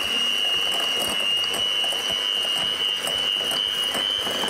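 Electric kitchen mixer running steadily with a high motor whine that rises slightly in pitch, beating butter and sugar in a bowl.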